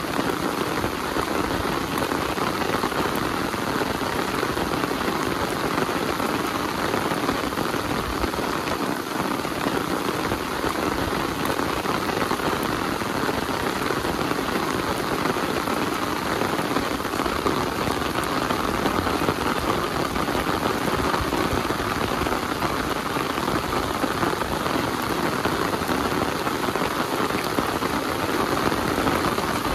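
Heavy rain falling, steady and even throughout.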